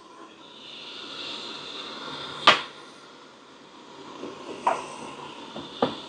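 A few clicks of small objects being handled over a faint hiss: one sharp click about two and a half seconds in, then two lighter ones near the end.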